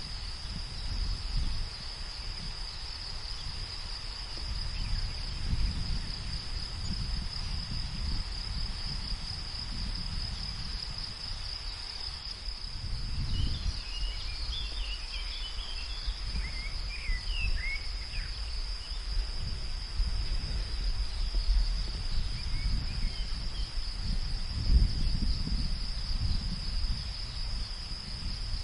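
Field ambience: insects keep up a steady, even high trill, over a low gusting wind rumble that swells and fades. A few short bird chirps come about halfway through.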